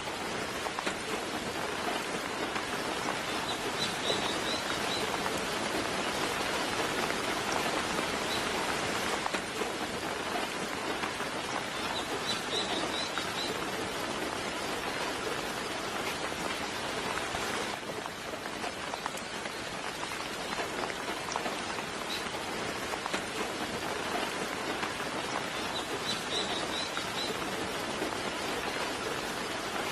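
Steady soft rain falling, with a bird giving short high chirps three times.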